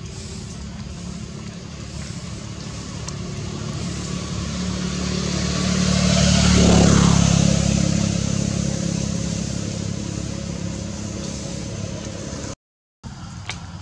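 A motor vehicle passing by with a low engine drone that grows over several seconds, is loudest about seven seconds in, and then fades away. The sound cuts out for a moment near the end.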